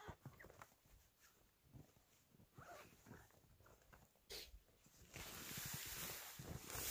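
Soft handling rustles, then from about five seconds in a louder, continuous rustle of tent fabric being pulled out and shaken open.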